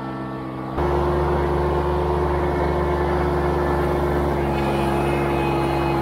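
John Deere 755 compact tractor's three-cylinder diesel engine running at a steady speed, suddenly louder and closer about a second in.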